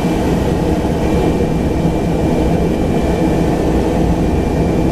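A Pilatus PC-12's single Pratt & Whitney PT6A turboprop engine and propeller, heard from inside the cabin while the aircraft taxis. It makes a steady, loud drone with a faint, steady high tone above it.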